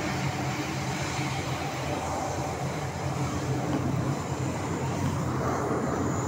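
MTR M-Train running at speed, heard from inside the carriage: a steady rumble of wheels on rail with a low motor hum.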